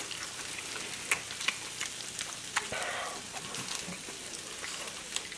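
Pork belly and kimchi sizzling on a round grill pan: a steady hiss with scattered sharp pops.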